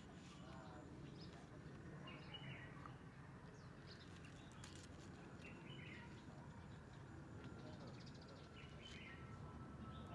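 Faint outdoor background with three short, high chirping calls about three seconds apart.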